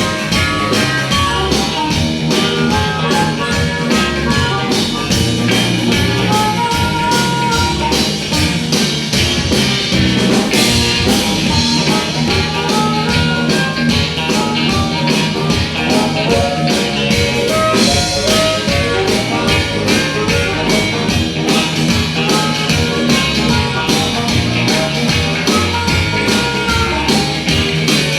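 Live rock and roll band playing an instrumental passage, with electric guitar lines over a driving beat.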